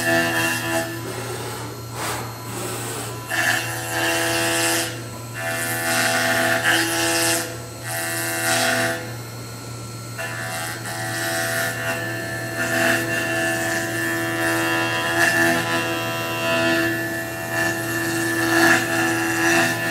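Five-axis CNC milling machine's spindle cutting into a laminated katsura wood block: a steady whine with a rasping cutting noise that swells and eases as the cutter moves through the wood.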